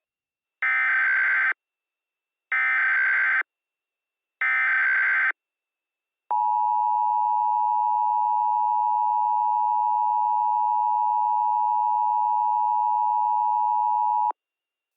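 Emergency Alert System header and attention signal. Three short buzzy bursts of SAME header data, each just under a second and about two seconds apart, are followed by the steady two-tone EAS attention signal. That tone is held about eight seconds and cuts off sharply, announcing an emergency alert message.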